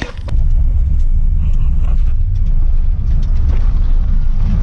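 Car driving on a dirt road, heard from inside the cabin: a steady low rumble of engine and tyres.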